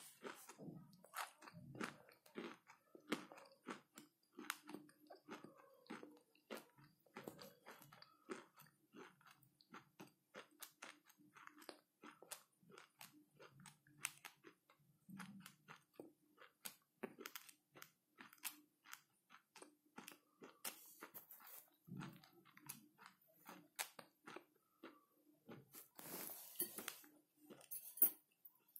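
Close-up chewing of dry, roasted clay chunks: a steady run of small, crisp crunches in the mouth, with a louder cluster of crunches near the end.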